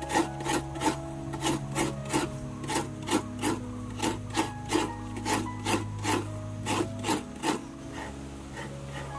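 Half a coconut being scraped on a stool-mounted coconut scraper (hiramanaya), its serrated blade rasping out the white flesh in short, even strokes about three a second. The strokes stop about seven and a half seconds in.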